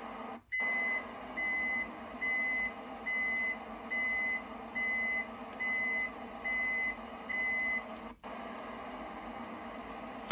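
Electronic reversing beeper on an Arduino-controlled scale-model Renault Trucks tractor unit: nine even, high-pitched beeps about one a second, stopping near the end, over a steady low hum.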